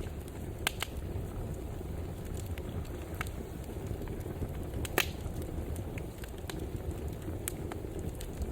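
Wood fire crackling in a fireplace: a steady low rumble of burning with scattered sharp pops, the loudest about five seconds in.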